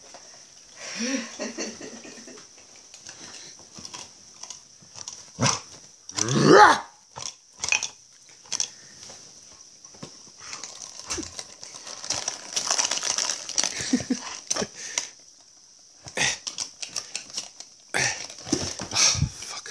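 Pit bull-type dog growling playfully while tugging and mouthing a rubber chew toy, with a loud, drawn-out growl about six seconds in. Short clicks and knocks of the toy and bedding are heard between growls.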